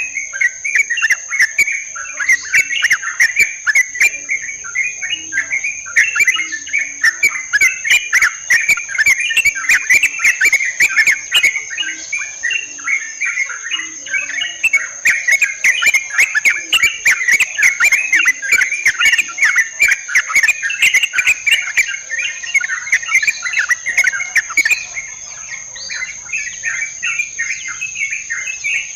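Yellow-vented bulbuls chattering busily, a dense, unbroken run of short bubbly call notes, over a steady high insect whine. The chatter thins out near the end.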